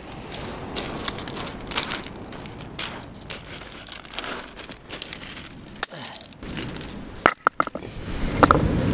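Shingle pebbles crunching and clattering as flat beach stones are shifted and set down by hand, with a few sharp stone-on-stone clacks near the end.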